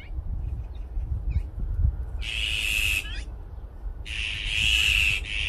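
Azure-winged magpies calling: two long, harsh rasping calls, about two seconds in and again about four seconds in, with a few short sliding notes between them.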